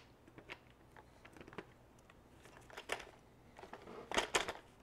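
Plastic clicks and knocks of a string trimmer's guard being handled and lined up against the motor head, with a cluster of louder clicks about four seconds in.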